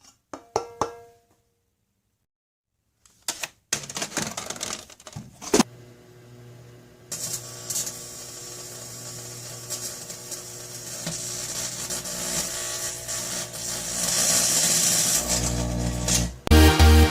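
Microwave oven switched on with short beeps and clicks, then running with a steady hum. Aluminum foil inside is arcing, giving crackling and a growing hiss.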